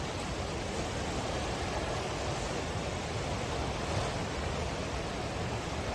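River in flash flood: fast floodwater rushing in a steady, even noise with no break, cut off suddenly near the end.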